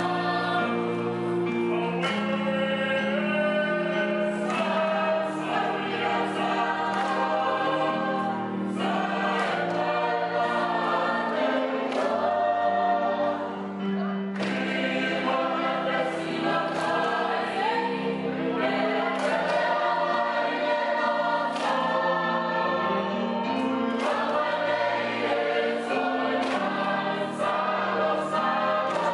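A large group singing a Samoan song together in harmony, with band accompaniment.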